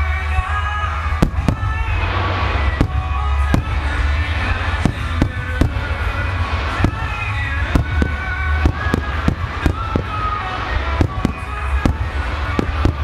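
Aerial firework shells bursting in a rapid series of sharp bangs, more than one a second, with music playing along throughout.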